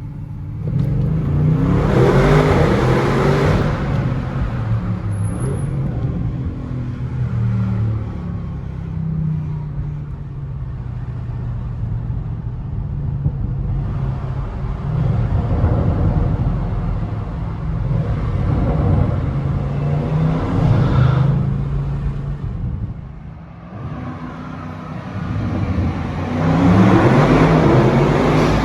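Audi RS6 C8's 4.0-litre twin-turbo V8 heard on board, pulling hard with its note rising near the start and again near the end, and running steadier in between.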